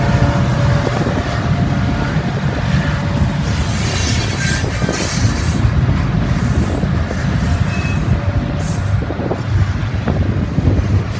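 Freight train cars rolling past at speed on steel rails: a loud, continuous rumble and clatter of wheels, with brief high wheel squeals here and there.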